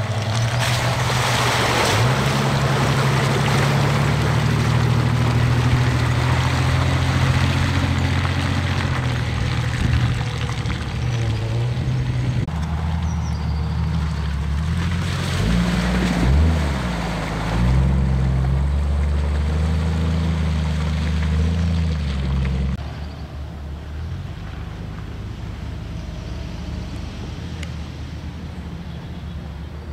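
Jeep Cherokee (XJ) 4x4 engines labouring and revving under load as the vehicles climb steep, muddy off-road slopes, with the engine note rising and falling with the throttle. Mud and water splash during the first few seconds, and the engine sound becomes quieter about 23 seconds in.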